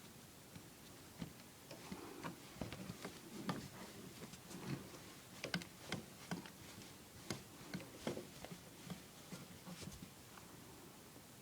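Scattered light clicks and knocks of plumbing parts and tools being handled, coming irregularly, sometimes several a second.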